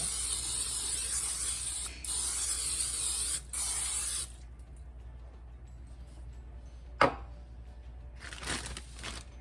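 Aerosol cooking spray hissing out of the can onto a bundt pan in a long spray, broken twice by brief pauses, that stops about four seconds in. A single sharp knock follows about seven seconds in.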